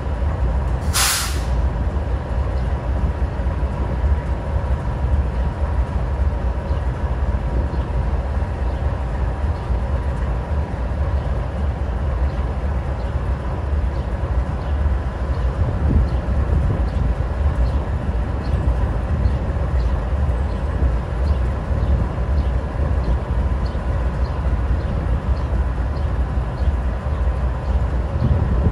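GE Dash 9-44CW diesel-electric locomotive idling: its 16-cylinder diesel gives a steady low rumble with a faint steady whine above it. About a second in there is one short, sharp hiss of released air.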